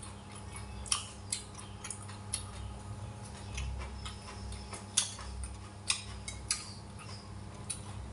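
Eating sounds: irregular sharp clicks of chopsticks and a metal spoon against dishes, mixed with the crunch of crisp cucumber being chewed.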